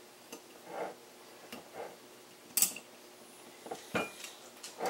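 Metal winged corkscrew clicking and scraping against a wine bottle's cork and neck as it is twisted, in a handful of irregular small clicks and rubs, the sharpest about halfway through; the screw is not biting into the cork.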